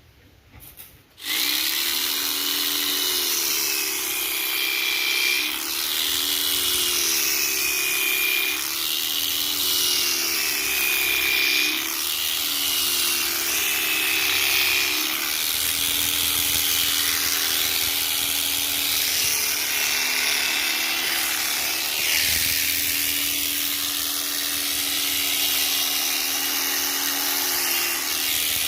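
Electric sheep-shearing machine switching on about a second in and running with a steady whine while shearing a ram's thick fleece with a freshly sharpened blade. Its pitch dips and recovers about every two seconds, then holds steadier in the second half.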